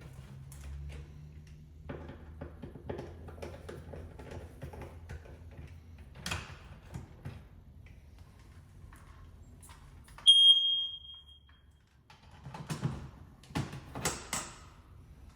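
Battery smoke detector handled and fitted to its ceiling mount with small clicks and clatter, then one loud, high-pitched piezo beep about ten seconds in that fades over a second or so, the chirp a new smoke alarm gives when it powers up.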